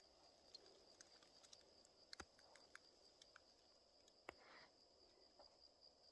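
Near silence with a faint, steady high-pitched cricket trill and a few scattered faint ticks.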